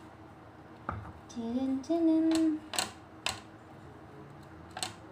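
A woman briefly humming two short notes, the second higher, while a table knife spreading sauce on bread clicks and taps against the plate and sauce bottle four or five times.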